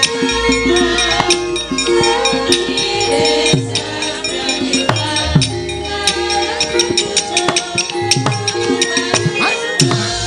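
Javanese gamelan playing for a wayang kulit show: held metallophone tones over kendhang drum strokes that drop in pitch, with frequent sharp clacks from the dalang's kepyak plates and puppet box.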